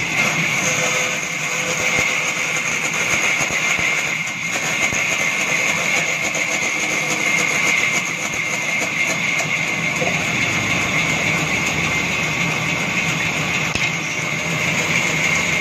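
Large band saw cutting through a thick wooden plank, its blade running with a loud, steady high-pitched hiss.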